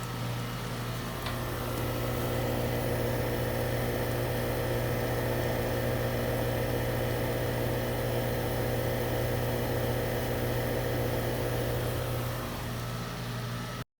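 Goodman outdoor AC condensing unit running: a steady electrical hum from the compressor with the condenser fan. The system is running low on R22 refrigerant. The sound cuts off suddenly just before the end.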